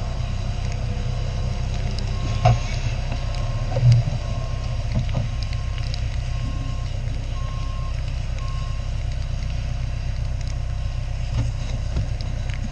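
An electronic beeper sounding one short beep at one pitch about every three-quarters of a second, over a steady low rumble. The beeping runs for several seconds and stops about two-thirds of the way through. Two louder knocks come a couple of seconds in.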